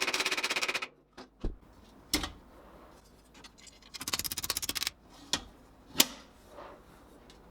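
Rapid mechanical hammering on sheet steel, in two short runs of about fifteen blows a second, with a few single sharp knocks in between.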